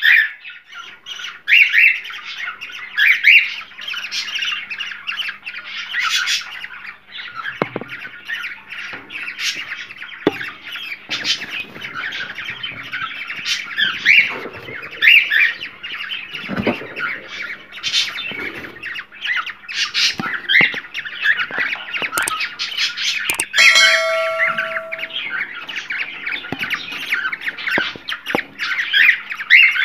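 Cockatiels calling: many overlapping squawks and chirps, the flock chatter used to stimulate cockatiels to breed.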